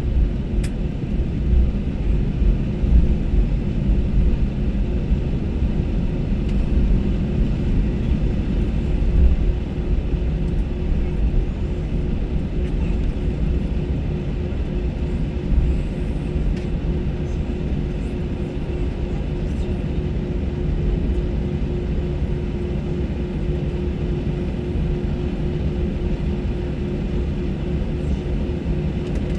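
Steady cabin noise inside an Airbus A321 on the ground after landing: a low rumble with a constant hum.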